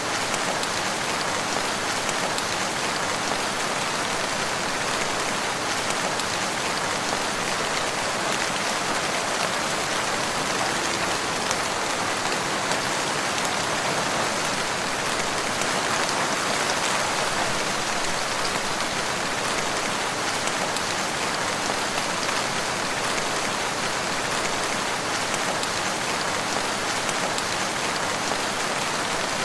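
Steady rain falling on a surface, an even unbroken hiss of many drops with no rises or breaks.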